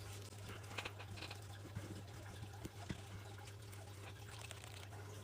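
Faint scratchy rubbing and light clicks of a rag wiping excess grease off a freshly rebuilt clutch master cylinder, over a steady low hum.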